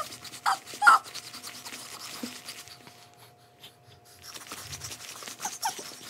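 A baby's excited rapid panting breaths, with short high squeals near the start and again near the end.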